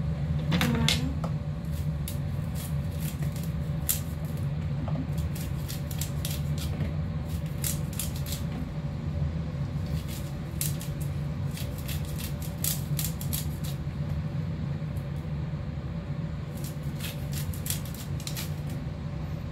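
Kitchen knife slicing kernels off a grilled corn cob: a string of short, crisp cuts and scrapes, irregular and in clusters. A steady low hum runs underneath.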